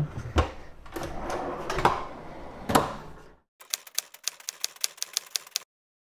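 Full-extension metal ball-bearing drawer slides under a fridge tray rolling out, with a few knocks. These are followed by a separate run of quick, even clicks, about six a second, lasting about two seconds and cutting off suddenly.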